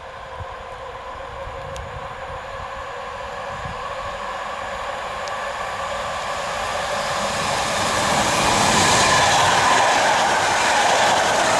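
A local passenger train pushed by a Škoda class 362 electric locomotive approaches and passes close by. Its wheels on the rails grow steadily louder over about eight seconds, with a steady whine over the rumble, and it is loudest as the coaches go past near the end.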